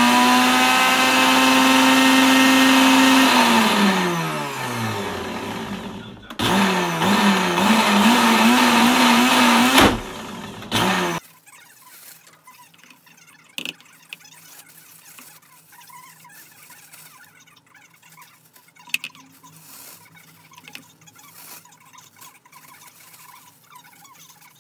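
Countertop blender's motor blending thick chickpea hummus. It spins up to a steady whine, winds down and stops, then runs again for about four seconds with a wavering pitch before cutting off suddenly. A few faint clicks follow.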